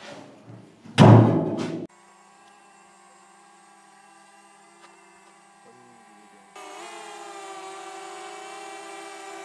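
A loud burst of noise, under a second long, about a second in that cuts off abruptly. Then a faint steady hum, and past the middle a louder held music drone of several sustained tones swells in and holds.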